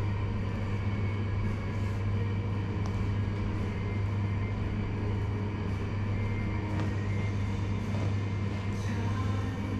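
A steady low electric buzz from a small mains-powered appliance running without a break, with a few faint clicks.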